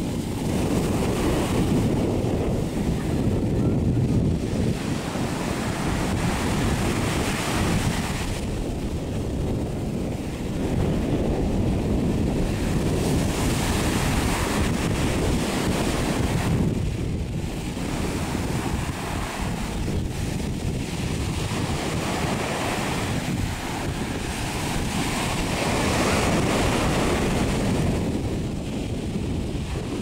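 Ocean surf breaking and washing up the beach, its hiss swelling and easing every few seconds, under a steady low rumble of wind on the microphone.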